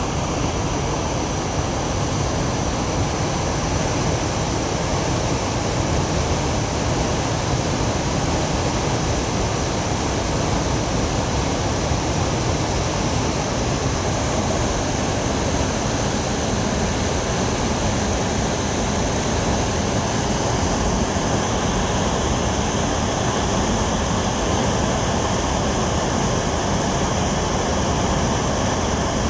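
Jeep driving on a road, heard from on board: steady engine and road noise with no change in level.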